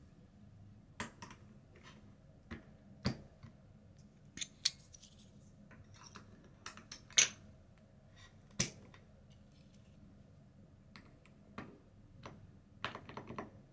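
Irregular sharp clicks and taps of keycaps on a wooden-cased Akko MU02 keyboard being handled, spaced a second or so apart, with a quick cluster near the end.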